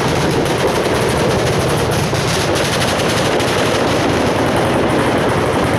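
A long string of firecrackers going off without a break: a rapid, continuous crackle of bangs.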